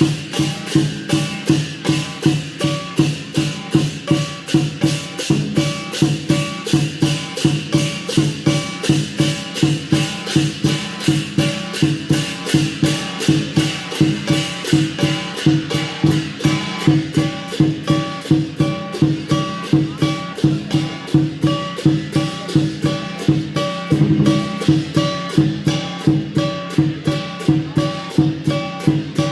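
Lion dance percussion: drum, cymbals and gong beating a fast, steady rhythm of about three strokes a second.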